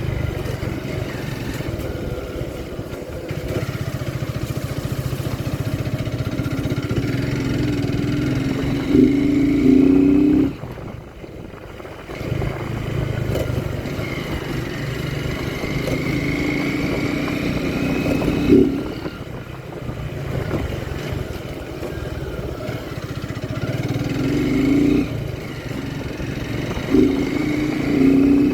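Motorcycle engine running on the move, with several louder surges as the throttle is opened and a brief drop in engine sound about ten seconds in.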